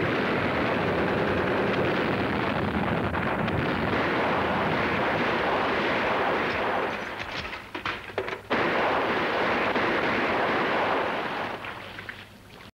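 Film battle sound effects: heavy, continuous gunfire. It thins briefly about seven seconds in to a few separate shots, comes back loud, then fades out near the end.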